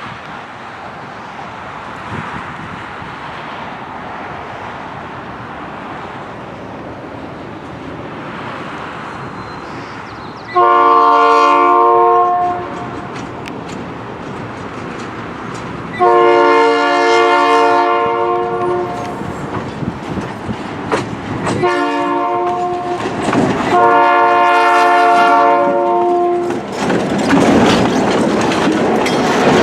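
EMD GP9 locomotive sounding its badly fouled Nathan P5 five-chime horn in the grade-crossing pattern, long, long, short, long, over the engine's steady rumble as it approaches. Wheels clatter over the rail joints near the end as it passes.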